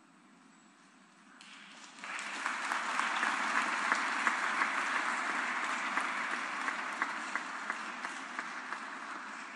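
Audience applauding in a large hall. The clapping starts about two seconds in, builds quickly and slowly tapers off.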